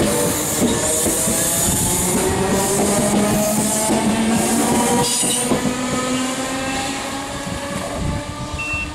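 Southern Class 313 electric multiple unit passing close over a level crossing: wheels running on the rails with a whining tone, fading as the train draws away.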